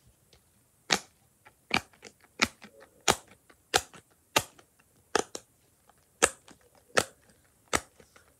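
Simple dimple fidget ball: its silicone bubbles are pressed one after another, each giving a sharp popping click. There are about a dozen clicks at a fairly even pace, roughly one every 0.7 s.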